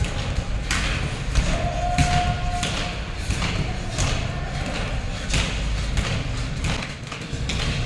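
Rope slapping a hard floor and bare feet landing as a trainee skips a long turned rope, a thud about twice a second that echoes around a large bare room.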